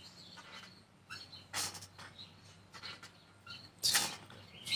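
Several short bursts of rustling and scraping as soil is dug through by hand in a potato grow bag, the loudest about four seconds in, with faint bird chirps.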